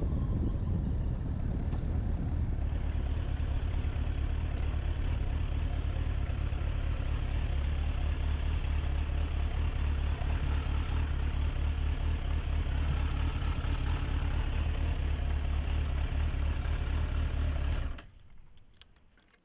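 Suzuki Bandit 1200's inline-four engine running at low speed and idling, then switched off near the end, the sound cutting out suddenly.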